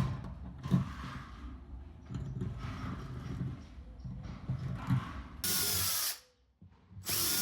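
A power drill run in two short bursts, each under a second, after a few seconds of knocks and handling.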